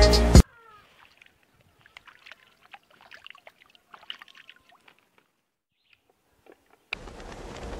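Music cuts off half a second in. Faint, scattered small ticks and splashes of water in a plastic-lined pond follow for a few seconds. From about seven seconds a steady outdoor hiss sets in.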